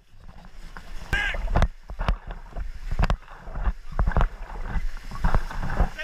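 Paddle raft running river rapids: a steady low rumble of rushing water and wind on the microphone, many sharp splashes and knocks of paddles and water against the raft, and a brief shout about a second in.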